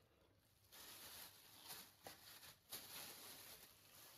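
Faint rustling and crinkling of a clear plastic bag being handled and lifted, starting about a second in, with a few louder crinkles.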